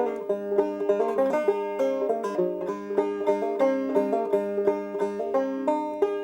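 Solo banjo playing an instrumental passage between sung verses: a steady stream of bright plucked notes, several a second, ringing over one another.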